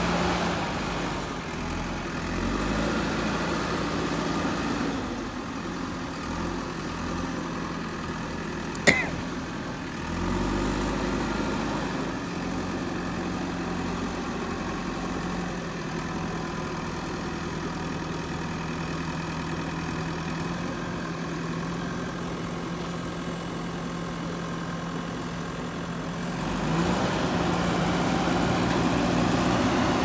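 JCB backhoe loader's diesel engine running steadily, revving up and working harder at the start, again about ten seconds in and near the end. A single sharp knock rings out about nine seconds in.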